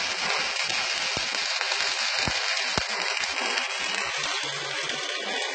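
Steady crackling hiss of a stick-welding arc from a Jasic ARC 201A inverter welder, burning evenly without breaks, the sign of a stable arc.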